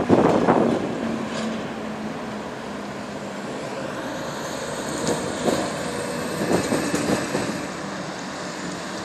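Road traffic passing close by. A car rushes past right at the start, and a heavy truck with a trailer goes by through the middle with its diesel engine hum and tyre noise, over a steady background of traffic.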